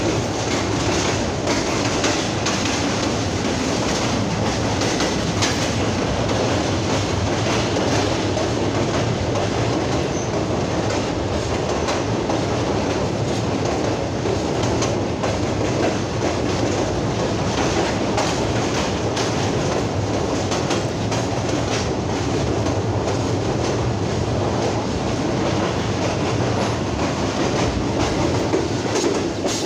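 Pakistan Railways Rehman Baba Express passenger train running along the line, heard from beside the carriage: a steady rumble of wheels on rails with the clickety-clack of wheels passing over rail joints.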